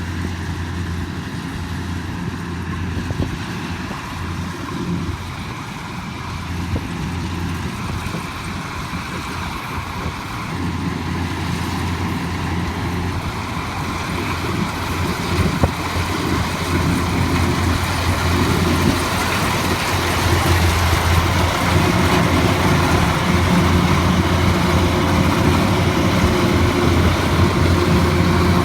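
Heavy farm machine's engine running steadily, growing louder over the second half.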